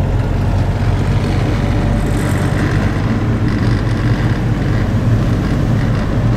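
Land Rover Defender's engine and road noise heard from inside the cab while driving, a steady low drone with no change in pace.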